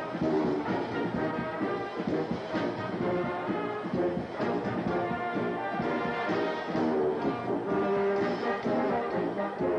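A brass band playing a piece together, with full sustained chords that change every second or so.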